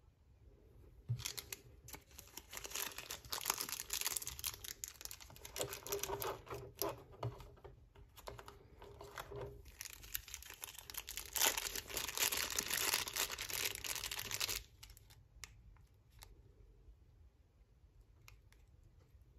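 Small clear plastic parts bag crinkling as it is handled and opened, in uneven bursts that stop abruptly about three-quarters of the way through, followed by a few faint clicks.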